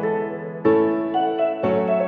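Background music with sustained keyboard-like chords, a new chord struck about once a second.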